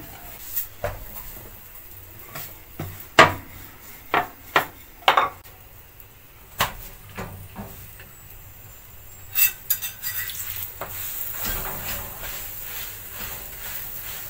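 Scattered knocks and clinks of kitchen utensils: a metal spoon against the oil bowl and the flat chapati pan, and dough being worked on a wooden rolling board. From about ten seconds in, a faint steady sizzle of a chapati cooking in oil on the hot pan.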